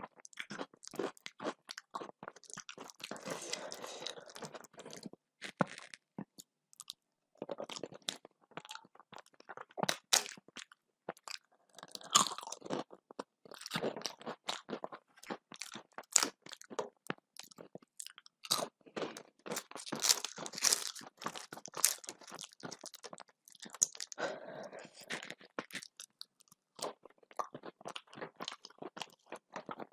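A person chewing and crunching a meal of rice, dal and vegetables eaten by hand. It is heard as many short, crisp clicks and crackles that come in bunches every few seconds with brief pauses between them.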